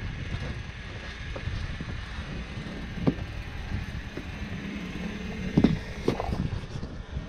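Jeep Wrangler's engine running at low revs as it crawls over rock, with a few knocks, the loudest about five and a half seconds in.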